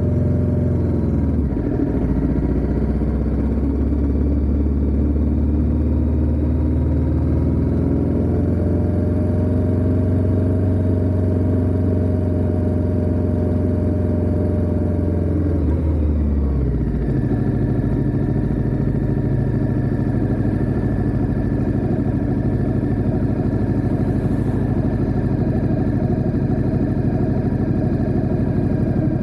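Ducati Diavel 1260S's V-twin engine running under way, its pitch rising gently and then falling away about two-thirds of the way through as the bike slows, after which it settles into a steady low idle.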